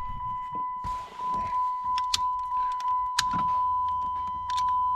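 Keys jangling and sharp clicks as the ignition of a 2006 Chrysler 300 is tried in a no-crank test, over a steady high-pitched electronic tone; a low hum comes on about three seconds in. The starter does not crank the engine.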